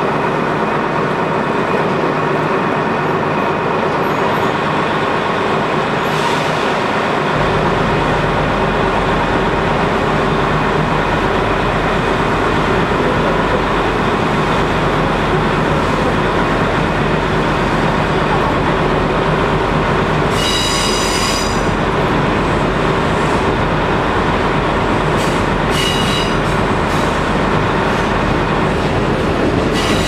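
Interior running noise of a KiHa 200 diesel railcar under way through a tunnel: a steady drone of engine and wheels on rail. A low hum sets in about seven seconds in, and a brief high wheel squeal comes about two-thirds of the way through, with a shorter one a few seconds later.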